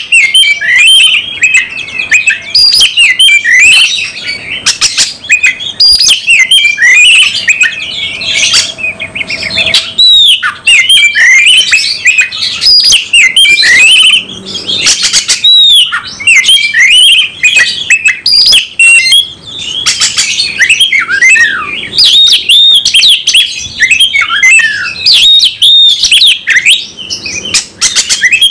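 A caged oriental magpie-robin (kacer) singing a loud, fast, unbroken stream of varied chirps and slurred whistles, with short pauses about ten and twenty seconds in. This is the hard-driven 'fighting' song of a bird in full display mood, pouring out its whole repertoire.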